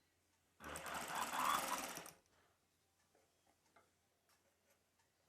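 Sewing machine stitching a seam in one short run of about a second and a half, starting about half a second in and then stopping.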